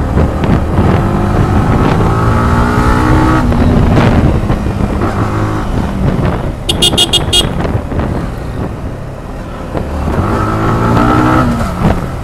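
Motorcycle engine pulling through the gears on the road, rising in pitch twice as it is revved up and falling back between. It has just been serviced and is running smoothly, with the deep 'boom boom' exhaust note. A short burst of rapid high beeps comes about seven seconds in.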